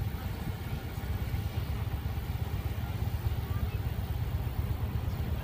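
Roadside traffic noise: a steady low rumble from vehicles moving slowly along the road, among them a passing golf cart.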